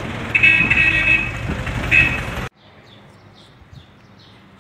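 Street traffic rumbling, with short high-pitched horn or beeper tones sounding in a few bursts. About two and a half seconds in it cuts off abruptly to a much quieter spot where small birds chirp, about three short falling chirps a second.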